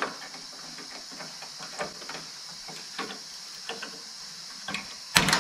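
Light clicking and scraping of a steel C-clamp's screw being cranked down on sheet metal, then near the end one loud, sharp crack as the cheap Harbor Freight C-clamp snaps in half under the load.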